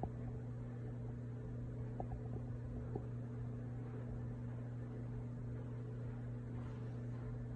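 A steady low hum with a faint hiss, and a few small faint clicks about two and three seconds in.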